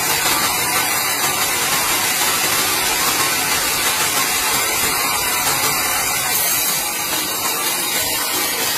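Sawmill band saw running with a steady, loud hiss as a large log on its carriage passes the blade.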